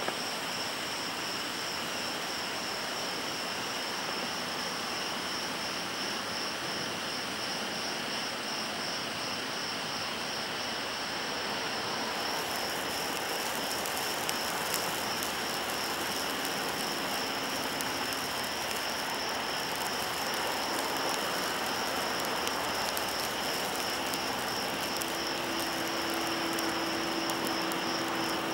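Black Cat Extra Large California Candle, a stick firework fountain, burning with a steady rushing hiss. From a little under halfway through, a crackle of spark bursts joins the hiss.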